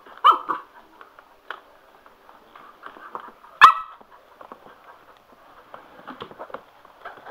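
Cocker spaniel pup barking while playing: a short yelp just after the start and one sharp, loud bark about three and a half seconds in, with small clicks and scuffs in between.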